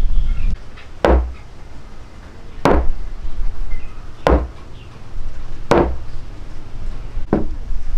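A large hand-made wooden mallet, its round log head fitted with a hardwood handle, knocking against a thick wooden workbench five times at an even pace about one and a half seconds apart. Each knock is a sharp, solid wooden thud.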